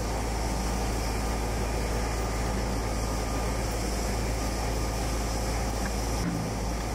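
Steady low rumble of outdoor background noise, even throughout, with no distinct events.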